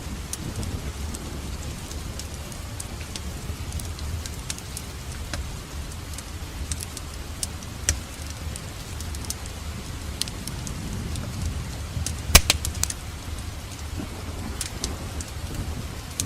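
Wood fire burning in a fireplace: a steady low rumble of flame with scattered crackles and pops. The loudest pop comes about twelve seconds in.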